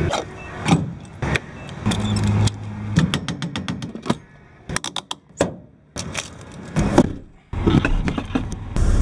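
Refuelling at a gas pump: clicks and metallic clatter from handling the pump nozzle and fuel filler, with a low steady hum in places and a quick run of rapid clicks in the middle.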